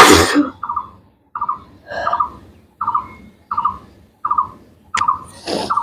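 A person sneezing loudly right at the start, followed by a steady run of short high-pitched squeaky sounds, roughly one every two-thirds of a second, with another breathy burst near the end.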